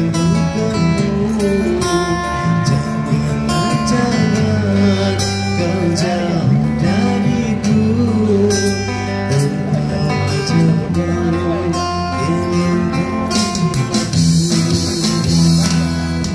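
Amplified live band playing the instrumental intro of a Malay song: electric guitars, bass and keyboard, with the bass notes held steady underneath.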